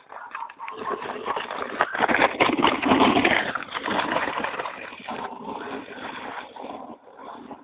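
A plastic sled sliding over snow: a rough scraping hiss that swells over the first three seconds and fades away toward the end.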